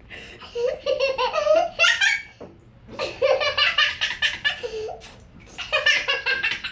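A baby laughing hard in three long runs of rapid, high-pitched giggles.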